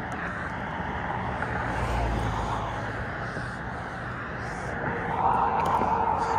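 Road traffic on a multi-lane highway: a steady noise of tyres and engines, with a low rumble swelling about two seconds in and a passing vehicle growing louder near the end.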